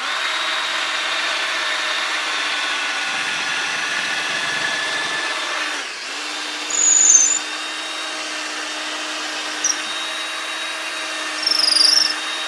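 Cordless drill running steadily with a long thin bit, boring a straight hole lengthwise through a small turned wooden pipe piece. The motor briefly slows about six seconds in and then runs on, with two short high-pitched squeaks in the second half.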